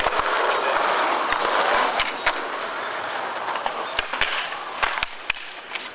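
Skateboard wheels rolling over concrete, a rumble loudest in the first two or three seconds, with a scatter of sharp clacks and knocks from boards striking the ground.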